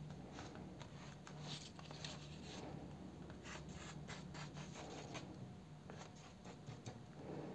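Faint, irregular snipping and paper rustle of scissors cutting out a paper sleeve pattern.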